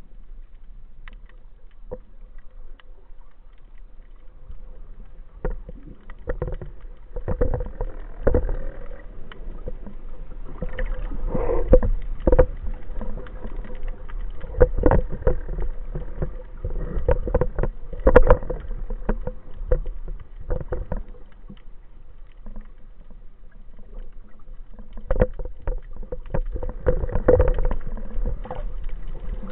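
Underwater churn of swell and bubbles heard by a camera on a speargun, with irregular knocks and crackles over a low rumble. It grows louder about six seconds in, eases around the twenty-second mark, and swells again near the end.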